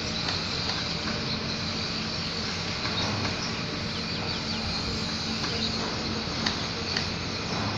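Steady outdoor background noise with a few faint, short bird chirps.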